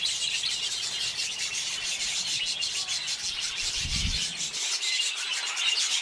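A colony of budgerigars chattering: a steady, scratchy chorus of warbling and chirping.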